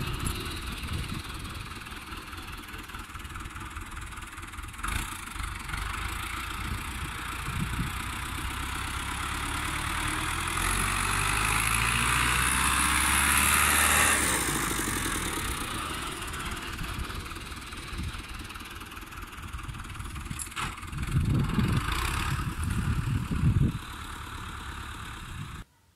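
Fiat 640 (New Holland) tractor's four-cylinder diesel engine working under load while pushing sand with a front blade. It grows louder for a few seconds midway, eases off, and surges again briefly near the end.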